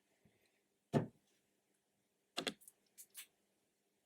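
Small tools and parts being handled on a workbench: one sharp knock about a second in, then a quick run of four or five clicks about two and a half to three seconds in.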